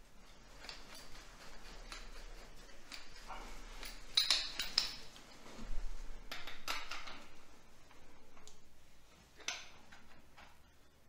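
Brass and steel lance-holder fittings clinking and scraping as they are handled and fitted together, with a few sharper clinks about four to six seconds in and one more near the end.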